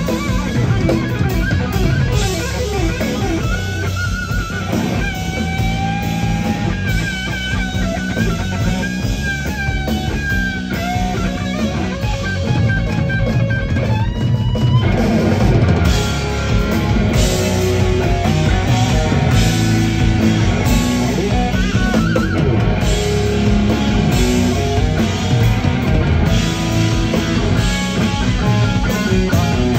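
Live rock band: a lead electric guitar playing bent, wavering single notes, with a quick upward slide about halfway through, over a steady drum-kit beat.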